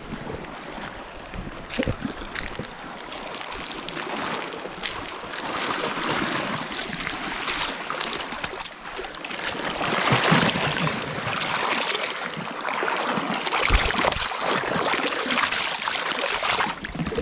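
Sea water washing and gurgling among shoreline rocks, swelling and ebbing with the waves, with a brief thump near the end.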